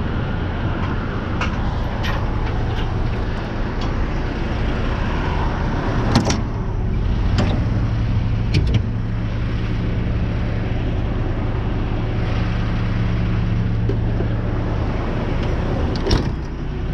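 Heavy-duty tow truck's diesel engine idling with a steady low hum, and a few sharp clanks about six, seven and a half, eight and a half and sixteen seconds in.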